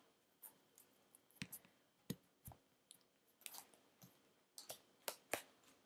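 Scattered soft clicks and taps of oracle cards and a paperback guidebook being handled on a tabletop, about a dozen small sounds with near silence between them.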